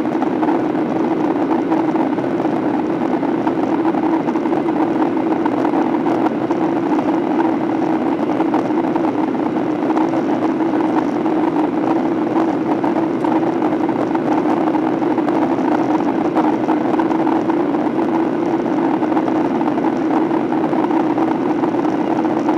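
Steady drone of a Boeing 737-800's CFM56 jet engines and rushing air, unchanging throughout, as the airliner climbs after takeoff.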